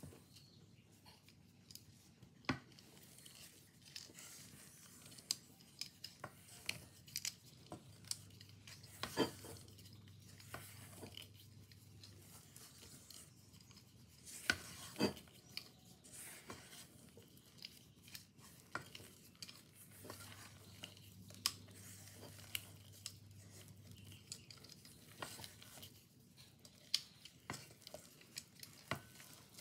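Silicone spatula folding flour into thick cake batter in a stainless steel mixing bowl: soft scraping and stirring, broken by scattered sharp clicks and taps against the metal bowl.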